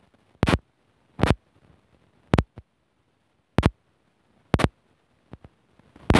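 A series of six sharp knocks, roughly a second apart, with a few fainter clicks among them and near silence in between.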